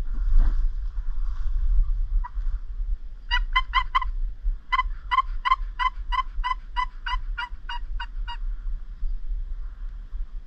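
Turkey yelping: a run of four quick yelps, a short pause, then about a dozen more at an even pace of roughly three a second, over a low rumble of wind on the microphone.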